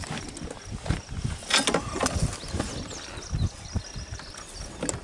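Irregular knocks, scrapes and rustles of a freshly caught catfish and the fishing line being handled in a boat.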